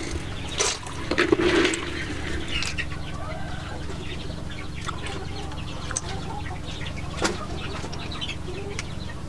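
A wooden ladle scooping boiled snails out of water in a clay pot, with splashes in the first two seconds. Then a spoon gives a few sharp clicks and scrapes in a small bowl, one louder click about seven seconds in.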